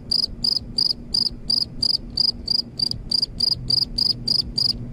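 Cricket chirping, short high chirps evenly repeated at about three a second over a faint low hum. The chirping cuts in abruptly, as an added sound effect does.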